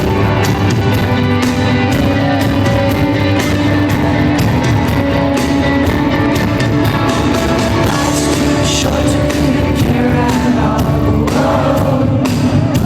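Live rock band playing loudly, with drums and singing over sustained guitar and keyboard tones; crowd voices rise near the end.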